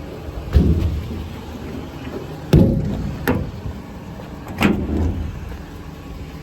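Metal service-body compartment doors on a mechanics truck being opened and shut: three loud bangs with a smaller latch click between them, over a steady low hum.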